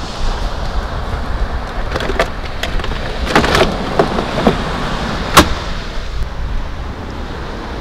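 Lid of a portable fridge-freezer being opened, contents knocking as a plastic bottle is lifted out, then the lid shut with one sharp, loud latch click about five seconds in, over steady wind and surf noise.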